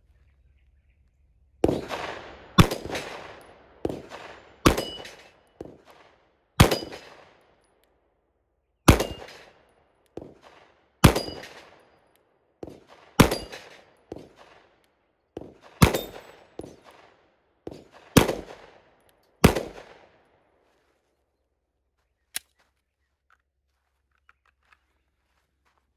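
A Walther PDP F-Series 9mm pistol fired about a dozen times at a slow, steady pace, one to two seconds apart, each shot followed by a short metallic ring as the bullet strikes a steel plate. The shots stop a few seconds before the end.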